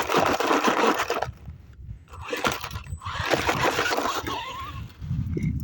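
Toy RC jeep driving over rough ground: two bursts of scratchy, crackling noise, the first about a second long and the second about two seconds.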